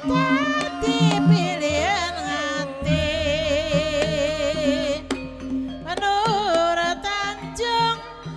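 Ebeg (Javanese kuda lumping) music: a voice sings a wavering melody, holding one long note with vibrato near the middle, over traditional percussion and instruments.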